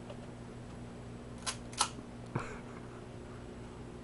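Two sharp mechanical clicks about a third of a second apart, then a softer knock, from an airsoft Desert Eagle pistol being handled ready to fire.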